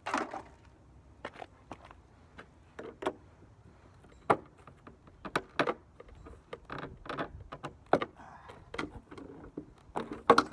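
Scrap metal parts being handled: a string of irregular knocks, clicks and clinks, with louder knocks near the start, about four seconds in and near the end.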